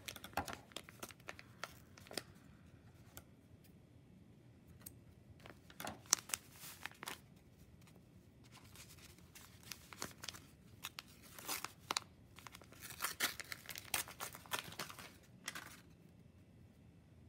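A skein of yarn being handled as its center end is sought and pulled out: intermittent rustling and crinkling in short bursts, heaviest around five to seven seconds in and again from about ten to fifteen seconds in.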